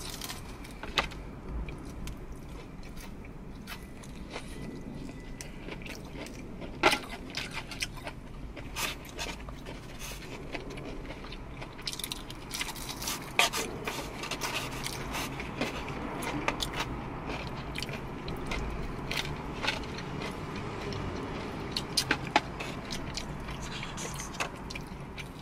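Close-up eating sounds: crunching bites into breaded fried chicken wings and chewing, with sharp crunches at irregular intervals, one of the loudest about seven seconds in.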